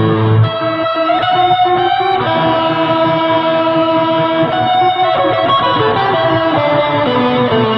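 Electric guitar played through a custom fuzz-and-reverb effects pedal, holding long sustained single notes. About half a second in a new note starts and bends slightly upward, and near the end the notes step downward.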